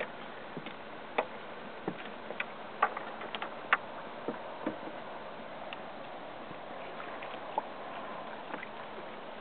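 Irregular sharp knocks and clicks, bunched in the first half and one more near the end, over steady background noise, as a landing net holding a netted redfish is handled against the side of a kayak.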